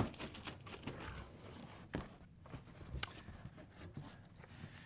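Cardboard box flaps being opened and the contents handled: faint rustling and scraping of cardboard, with a couple of light knocks about two and three seconds in.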